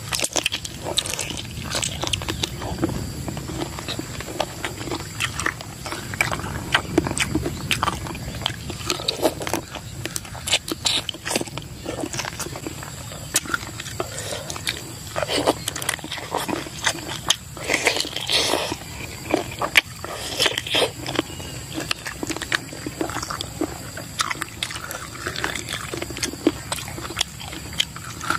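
A man biting and chewing cold mixed chicken feet in hot and sour sauce: a continuous run of irregular short mouth smacks and clicks.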